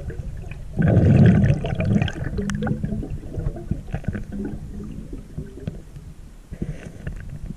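Water sloshing and gurgling against an underwater camera during a snorkel swim, with a loud rushing whoosh about a second in, then softer bubbling that trails off.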